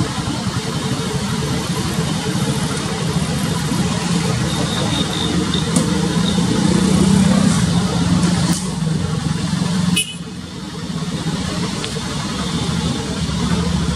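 Slow road traffic: engines of auto-rickshaws and a diesel bus running close by. A low engine hum builds for a few seconds, then drops off suddenly about ten seconds in, with a few short clicks.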